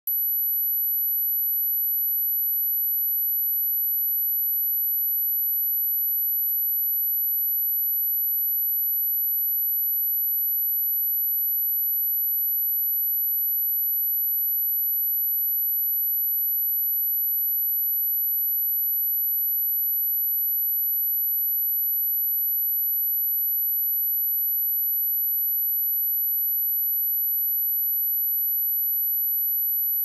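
Single steady, high-pitched pure sine-wave test tone at 11,871 Hz, held at one pitch and level. It is a speaker test tone, also played to shake water and dust out of speakers.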